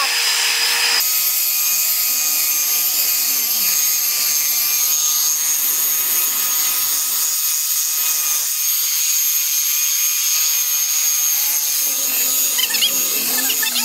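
Harbor Freight variable-speed belt sander running steadily with a high whine, its belt sanding along a cottonwood plank.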